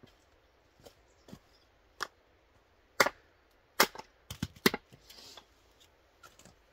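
Hatchet chopping into wood on a log chopping block, splitting firewood: a series of sharp strikes, the loudest about three and four seconds in, followed by a quick run of hits just before five seconds.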